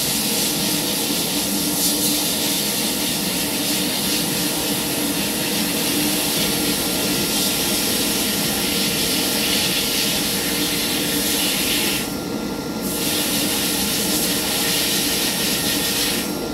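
Sandblasting: the blast gun's nozzle hissing steadily as it blasts abrasive onto an old wrench inside a blast cabinet, with a brief pause in the blast about twelve seconds in.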